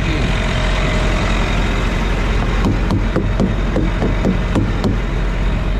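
Semi-truck diesel engine idling with a steady low hum, with a few short taps about halfway through.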